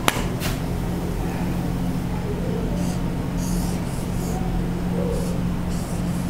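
Felt-tip marker drawing short strokes on a whiteboard, as boxes are drawn around written terms. A steady low electrical hum runs underneath, and there is a sharp click just after the start.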